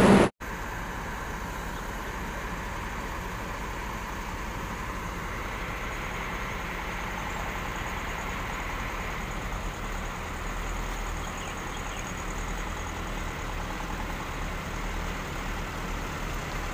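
Heavy vehicle's diesel engine running steadily at low revs, a low rumble that grows a little stronger about halfway through.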